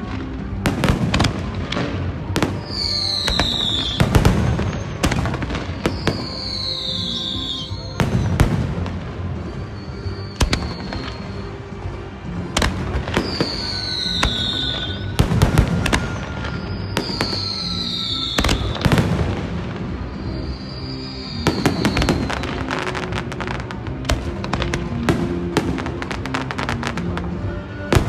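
Fireworks display: aerial shells bursting in repeated booms and bangs, with several short high whistles that fall in pitch, and a dense run of rapid crackling bangs over the last several seconds. Music plays underneath throughout.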